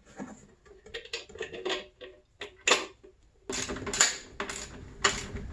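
Metal clicks and clinks of a hand tool working on a snowmobile muffler and its mounting hardware: scattered at first, then a denser run of sharp clicking from about three and a half seconds in.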